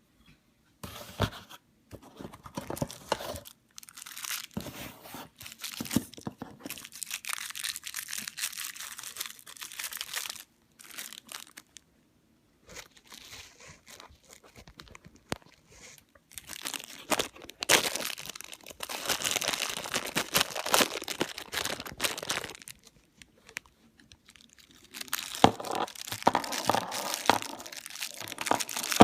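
Packaging being unwrapped by hand: crinkling and tearing in irregular bursts, with short pauses between them.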